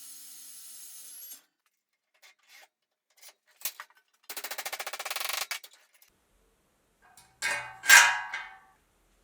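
Workshop sounds with silence between them. A steady hum cuts off about a second in, then comes a brief fast rasping like a file or saw on metal. Near the end two loud metal clanks ring on.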